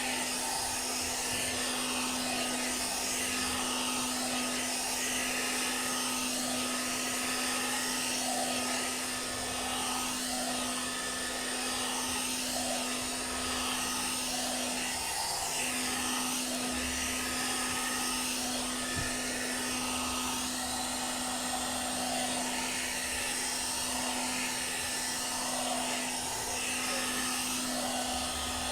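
One-step hot-air brush (hair dryer brush) running steadily: a constant motor hum with rushing air, the hum dipping briefly about halfway through.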